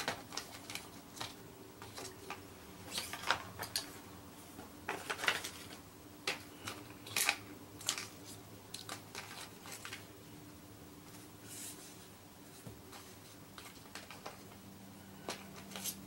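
Light, irregular clicks and taps of tiny laptop screws and small hand tools being handled on and around the laptop's bottom case. The clicks are thickest in the first half and sparser later, over a faint steady hum.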